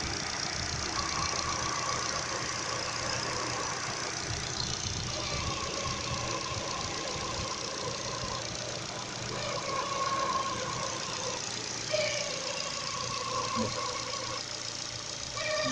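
Ford 16-valve car engine idling while its new Contitec timing belt whines, a tone that comes and goes every second or two over the steady running. The owner blames the noise on the replacement belt being rigid rather than rubbery like the original Ford belt.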